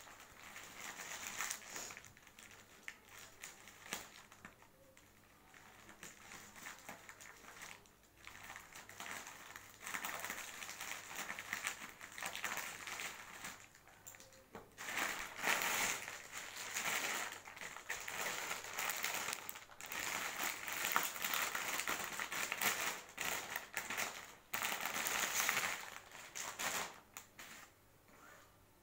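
Plastic courier mailer and inner plastic wrapping crinkling and rustling as a parcel is cut open and unpacked, loudest in the middle and toward the end.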